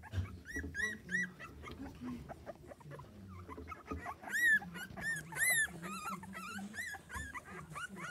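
Schapendoes puppies whimpering and yipping: a quick string of short high squeaks, each rising and falling in pitch, loudest about halfway through.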